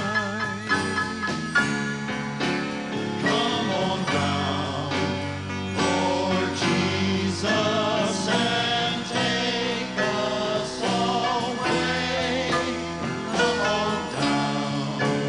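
Gospel song: several voices singing together with vibrato, backed by electric guitar and bass guitar.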